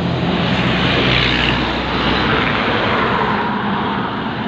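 Road traffic passing close by: a steady rumble of trucks and cars with tyre noise, the low rumble easing off about three and a half seconds in.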